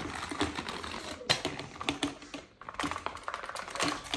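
Plastic toys clattering as they are tipped out of a plastic mesh basket onto a carpet: a quick run of small clicks and knocks.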